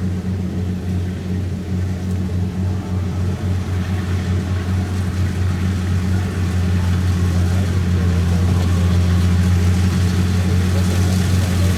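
Kubota DC-70 rice combine harvester's engine running steadily while harvesting, a deep even hum that grows a little louder over the last few seconds.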